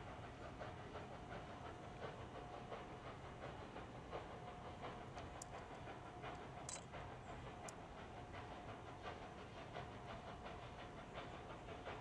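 Standing 0-6-0 steam switcher, Central Railroad of New Jersey No. 113, heard off to the side: a steady low rumble and hiss with a steady hum and faint irregular puffs. Three sharp clicks come near the middle.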